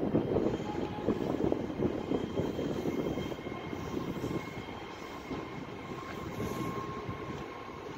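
Low rumble of a passenger train drawing in toward the platform, with faint steady tones above it. It is loudest in the first few seconds.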